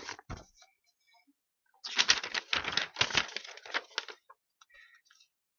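Handling noise close to the microphone: a dense run of clicks and rustles lasting about two seconds, starting about two seconds in, with a few faint clicks before and after.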